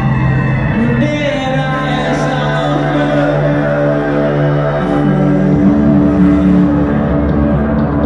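Electronic rock band playing live, heard from within the crowd: held notes over a steady bass line, with the bass dropping lower about two-thirds of the way in.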